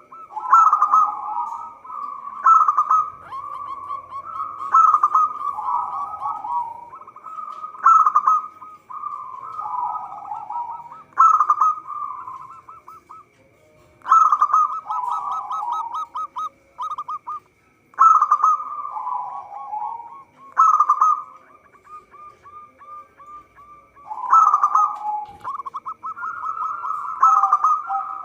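Zebra dove (local perkutut) singing: rolling, staccato coo phrases repeated every two to three seconds, each opening with a sharp loud note and running on in quick rolling notes.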